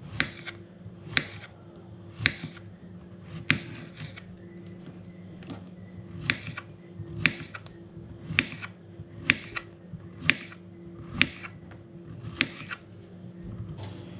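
About a dozen sharp clicks, roughly one a second, over a steady low hum.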